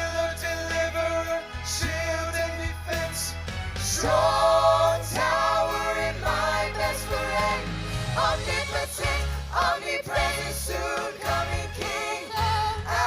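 Live gospel music: several voices singing together over instrumental accompaniment with a steady bass line.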